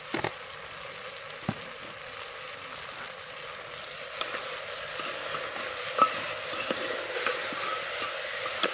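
Food frying in a metal pot over a wood fire, a steady sizzle that grows louder about halfway through, with a few clinks and scrapes of a steel ladle stirring it.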